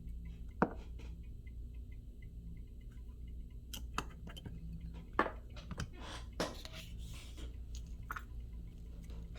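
Scattered light clicks and taps with a few short scraping sounds over a steady low hum; the sharpest click comes about half a second in, and the scrapes cluster in the second half.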